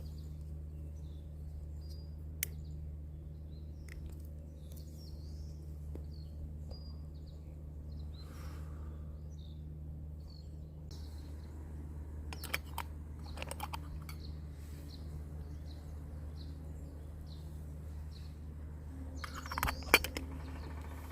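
Birds chirping on and off over a steady low hum, with a few sharp clicks and a short clatter near the end.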